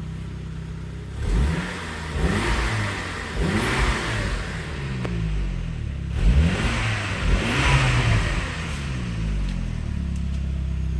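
Saab 9-3 2.0t turbocharged four-cylinder engine revved in several throttle blips, the pitch rising and falling each time, then settling back to a steady idle near the end.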